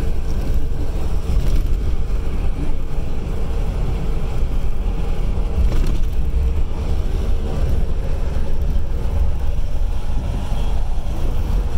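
Steady low road rumble and wind noise inside the cabin of a moving vehicle at highway speed.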